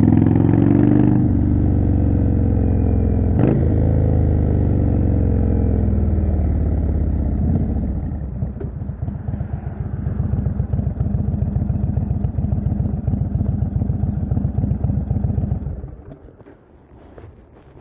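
Indian Chieftain's 1811 cc V-twin running through a Jekill & Hyde exhaust. It slows down with the engine note falling, with a sharp click about three and a half seconds in, then settles into a steady low, pulsing idle. The engine stops about sixteen seconds in.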